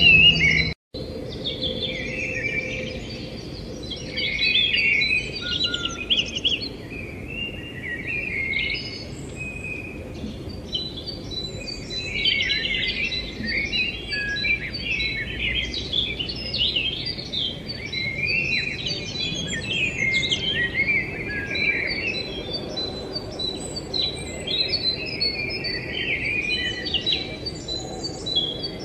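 Many small birds chirping and twittering in a dense, continuous chorus. The sound cuts out completely for a moment about a second in.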